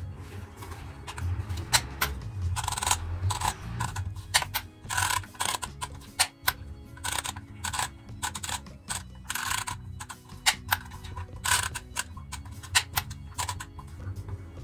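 An irregular run of sharp clicks and taps, several a second, over a low steady hum.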